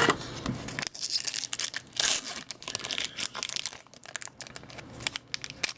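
Trading-card pack wrapper being torn open and crinkled: irregular crackling, loudest about two seconds in.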